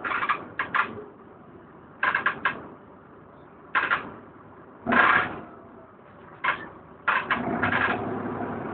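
Interior of a DAF DB250LF double-decker bus on the move: fittings and panels rattling in clusters of sharp clacks every second or two. About seven seconds in, a steady engine drone with a low hum comes up under the rattles.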